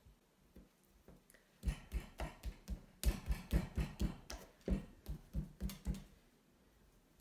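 Open palm slapping a lump of clay to pound it into a round ball: a run of about sixteen slaps, three to four a second, starting about a second and a half in and stopping about six seconds in.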